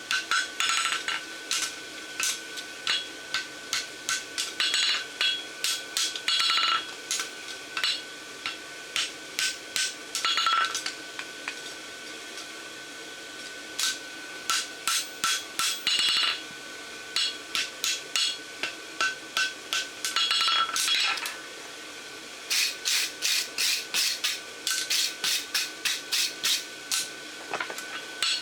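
Hand hammer striking a hot steel bar shoe on an anvil in runs of quick, ringing blows, about two to three a second, pausing for a few seconds near the middle. A steady high whine sounds underneath.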